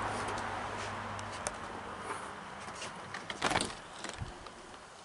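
A house door being handled and opened, with a cluster of clicks and knocks about three and a half seconds in, after a few light clicks. Underneath is a faint hiss and a steady low hum that stops a little over a second in.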